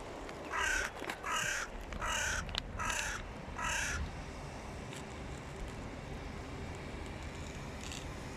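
Hooded crow cawing: five harsh caws in quick succession in the first half, then the calls stop, leaving a steady low background rumble.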